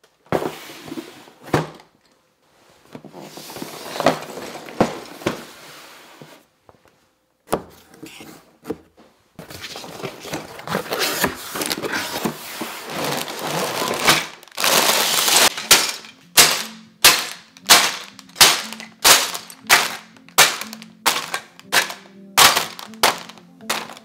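Cardboard box being torn open by hand, its flaps ripped and pulled back with scraping and rustling and a few knocks, and a long loud rip about two-thirds in. After that, background music with a steady beat of about two beats a second comes in.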